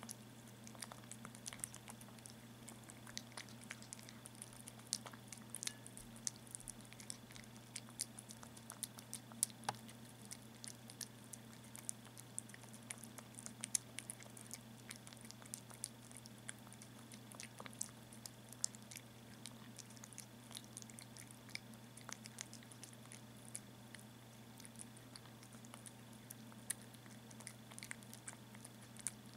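Kitten chewing and licking chunks of wet cat food off a glass plate: a steady, irregular stream of small wet clicks and smacks, over a faint low hum.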